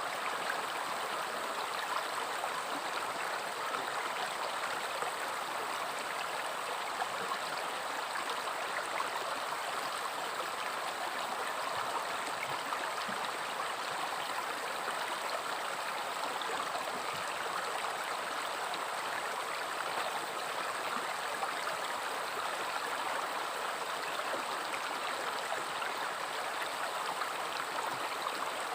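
River water flowing and splashing, a steady rushing with fine bubbling.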